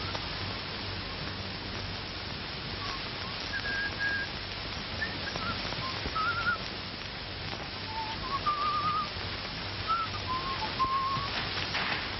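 A person whistling a slow tune, one clear note at a time with small trills, over the steady hiss and hum of an old film soundtrack.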